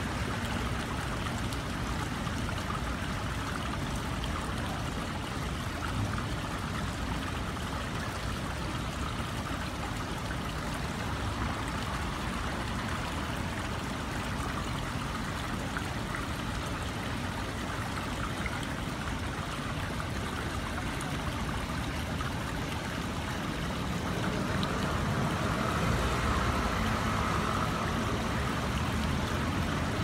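Water in a man-made rock-garden stream flowing and trickling over stones, a steady rush that grows a little louder near the end.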